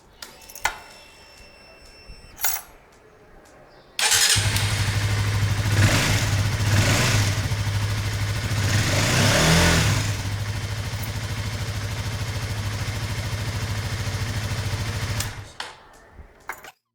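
Honda CBR150R's single-cylinder engine firing up on a freshly replaced battery about four seconds in, after a couple of sharp clicks. The throttle is blipped a few times, then the engine idles steadily and is shut off shortly before the end.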